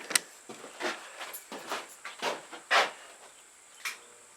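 Footsteps and handling noises: two sharp clicks at the start, a run of short scuffs about two a second, then a switch click near the end as an electric fan starts up with a faint hum.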